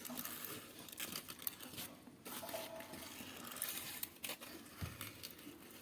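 Quiet, scattered crackling and tearing as roasted cactus is pulled apart and handled by hand.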